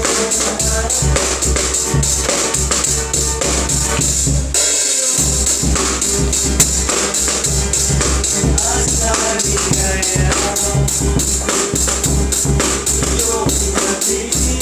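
A small band playing: a strummed acoustic guitar with a bass drum, snare and cymbal keeping a steady beat. The bass drum drops out briefly about five seconds in.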